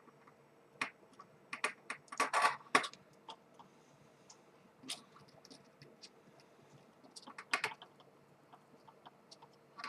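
Scattered light clicks and taps in small clusters from handling a soldering iron, solder and circuit board while soldering a switch's joints.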